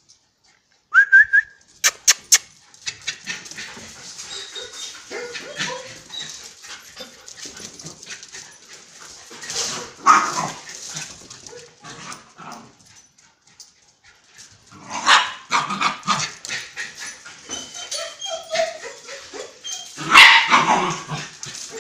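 Dogs playing rough, making barks, yips and whimpers in irregular bursts. A short rising whine comes about a second in, and the loudest barks come about ten seconds in, around fifteen seconds and near the end.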